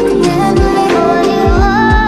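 Background music with a sung melody over a beat, with deep bass notes sliding downward about halfway through and again near the end.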